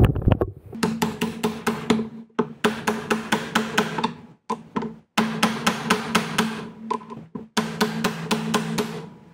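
Ball-peen hammer striking steel in quick, even blows, about five a second in several runs with short pauses, each blow ringing briefly. It is driving a new bearing into the end of a tractor steering cylinder.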